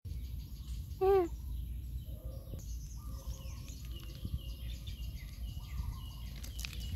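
Outdoor ambience with a steady low rumble and faint bird chirps. About a second in, one short wavering animal call stands out as the loudest sound.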